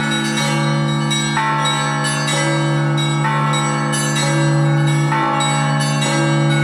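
Russian Orthodox church bells rung together in a continuous peal: a deep bell's steady hum under frequent strikes of smaller, higher bells.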